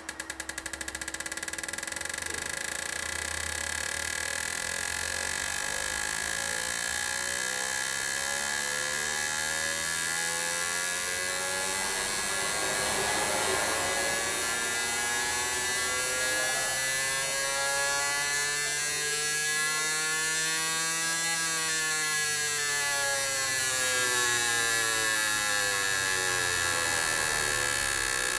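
Fuel injector test bench running a flow test on four petrol injectors, the injectors pulsing rapidly as a steady electric buzz. It starts abruptly and its tones slowly drift in pitch.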